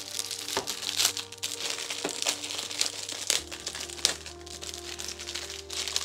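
Clear plastic wrap crinkling and crackling in irregular rustles as it is handled and peeled off a plastic food container, over steady background music.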